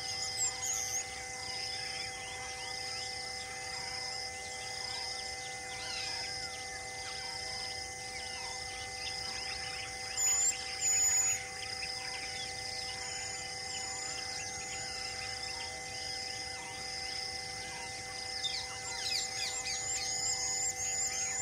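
Forest ambience: a high chirp repeating steadily over a faint steady hum, with birds calling. Two loud high whistled bird notes come about halfway through, and a quick series of high calls comes near the end.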